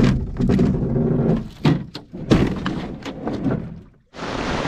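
A run of dull thumps and knocks. About four seconds in the sound drops out briefly and gives way to a steady rushing hiss.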